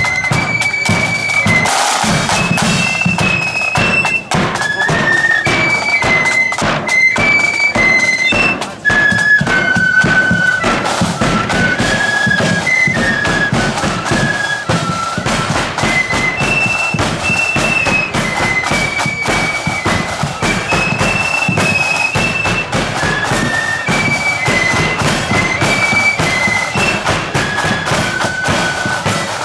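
Marching flute band playing a march: high, shrill flutes carry the tune in held notes over side drums and a bass drum beating time.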